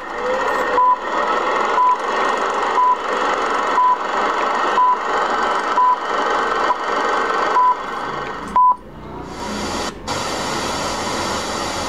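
Film-leader countdown sound effect: a short high beep about once a second, nine times, over a steady crackling hiss like an old film projector. The beeps stop about three-quarters through, leaving the crackle and hiss with a sharp click near the end.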